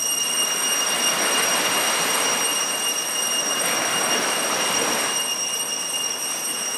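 Gentle sea waves washing onto a sandy beach: a steady rushing hiss that swells and eases every second or two, with a thin, steady high-pitched whine over it.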